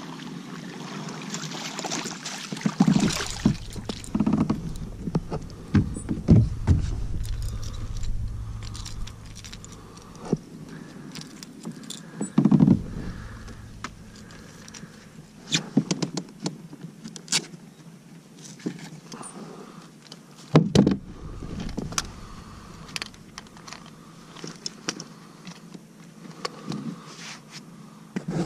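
Fish being landed and unhooked aboard a plastic fishing kayak: scattered knocks, clatter and scrapes against the hull, with metallic jingling from the crankbait's treble hooks.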